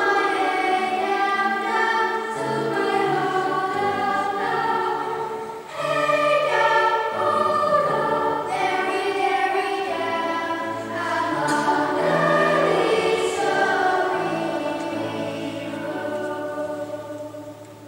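Girls' children's choir singing in harmony, with long held notes; the final chord dies away near the end.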